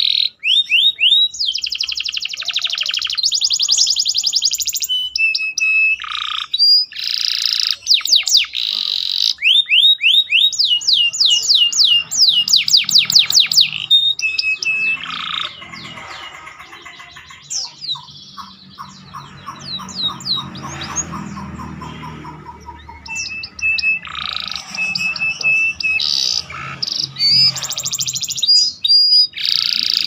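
Domestic canary singing a long song of fast trills, buzzy rolls and runs of quick rising notes, its repertoire filled with borrowed bar-winged prinia (ciblek) phrases. The song drops to a softer, lower warble for several seconds midway, then comes back loud.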